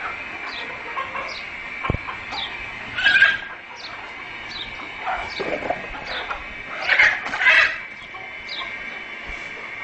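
Chickens calling, with two loud harsh squawks about three seconds in and again around seven seconds, and a few weaker calls between them. Behind them runs a steady high hum, and a short high chirp repeats about twice a second.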